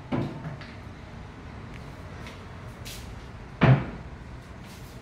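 Wall-hung kitchen cabinet shutter on concealed hinges being swung open and shut: a sharp knock just after the start and a louder knock about three and a half seconds in.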